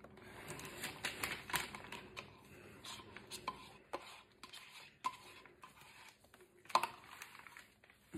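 Faint clicks and scrapes of a stir stick against a paper cup as the last white acrylic paint is scraped out of it, with one sharper tap near the end.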